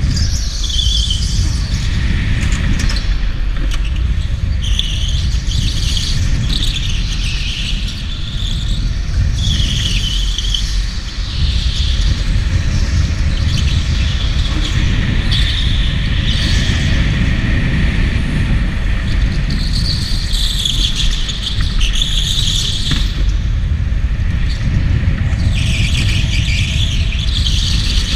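Onboard sound of an electric go-kart at speed on a smooth concrete floor: a steady low rumble, with the tyres squealing in repeated bursts as it slides through the corners.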